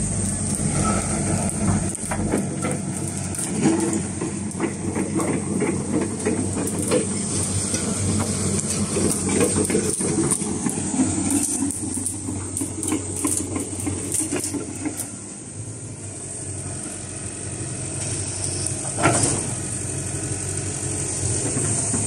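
Hitachi ZAXIS 120 excavator's four-cylinder diesel engine running steadily, with its note swelling and easing and a little quieter about two-thirds of the way through. A single sharp knock comes a few seconds before the end.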